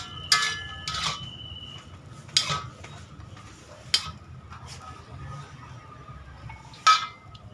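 Long steel spatula scraping and knocking against a steel wok as fried rice is stirred and scooped, about five sharp metal clanks that ring briefly. The loudest clank comes near the end.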